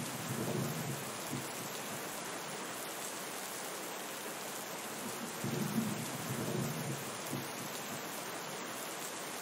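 Steady rain with two low rolls of thunder, one at the start and another about five and a half seconds in.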